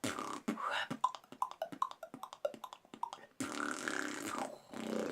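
Beatboxer's mouth sounds: a rapid run of pitched tongue clops, mixed with vocal sounds, then a longer held voiced sound about three and a half seconds in.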